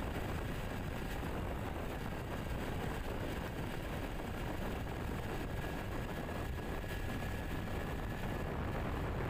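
Motorbike riding steadily along a road: a continuous engine drone mixed with wind rushing past.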